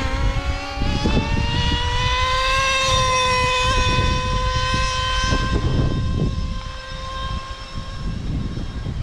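Traxxas Slayer Pro 3.3 nitro RC truck's two-stroke glow engine revving up, then holding a steady high-pitched whine at full throttle. The whine fades away near the end as the truck runs far out. Low wind rumble on the microphone runs underneath.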